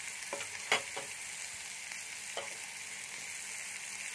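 Chopped onion, capsicum, tomato and green chilli sizzling steadily in hot oil in a frying pan. A few short sharp clicks come in the first second and once more about two and a half seconds in.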